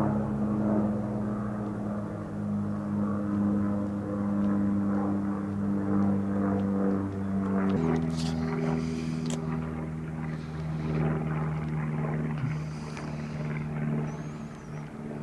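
A steady engine-like hum that shifts to a new pitch about eight seconds in, with a few faint high chirps near the end.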